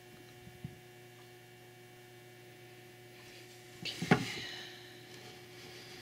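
A steady low hum, with a light click near the start and one sharp knock about four seconds in, followed briefly by a faint scrape.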